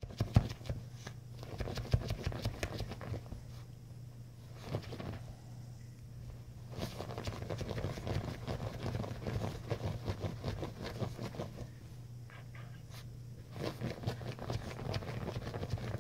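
Chinese crested puppy digging at a quilted bedspread with her paws, a fast, irregular run of scratches and rustles that eases off twice, over a steady low hum.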